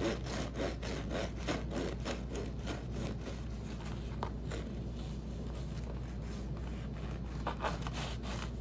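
Serrated bread knife sawing back and forth through a freshly baked crusty French loaf, a steady run of crunchy, crackling rasps as the hard crust breaks under the teeth: the crusty sound of a crisp, well-baked crust.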